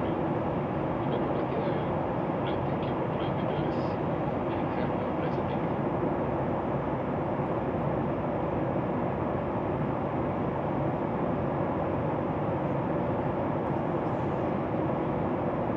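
Steady cabin noise of a Boeing 737 MAX 8 in flight: its CFM LEAP-1B turbofan engines and the rush of air along the fuselage, heard from inside the cabin, even and unchanging.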